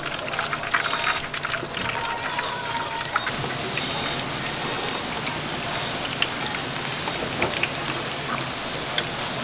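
Food deep-frying in hot oil: a steady sizzle with scattered crackles, which grows denser about three seconds in, with a few clinks and scrapes before that.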